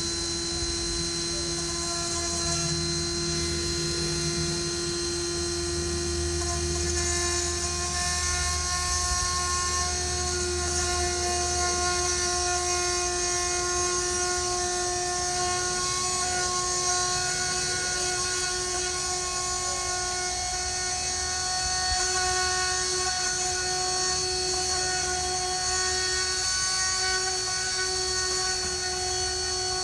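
Dremel rotary tool with a glass bit running steadily with a high whine, drilling into the windshield at the centre of the rock-chip impact to open it for resin. Its pitch edges up slightly about seven seconds in.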